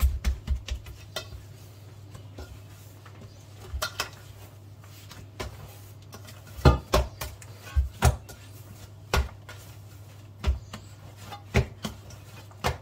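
Risen pizza dough being punched down by hand, a quick run of soft thumps in the first second, then scattered knocks of dishes and utensils on a kitchen counter. A steady low hum runs underneath.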